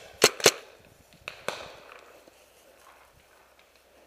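Two paintball marker shots in quick succession, about a quarter second apart, followed by a fainter crack about a second later.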